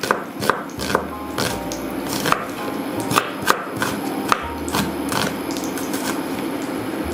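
Kitchen knife slicing red onion lengthwise on a wooden cutting board: a steady series of knocks of the blade on the board, about two a second.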